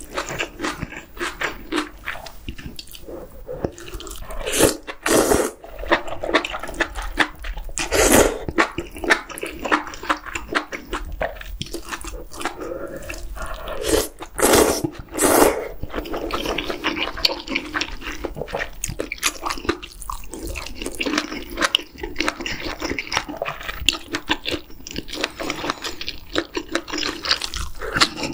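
Close-miked eating of octopus hot pot with chewy jjolmyeon noodles: steady wet chewing and lip smacks, broken by a few loud, short noodle slurps about a third of the way in and again around the middle.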